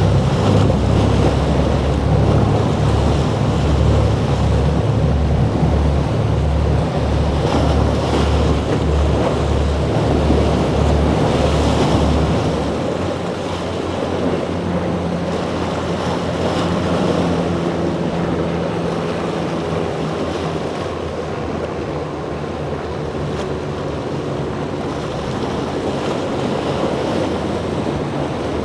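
Large sportfishing boat's inboard engines running with a low, pulsing throb as the hull pounds through breaking waves, with wind buffeting the microphone. A little before halfway the throb gives way to the quieter, steady hum of an outboard-powered center-console boat over the surf.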